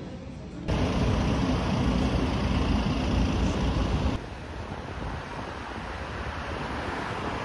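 City street traffic noise: a steady rushing sound with no clear engine note. It jumps louder abruptly about a second in and drops back abruptly about four seconds in.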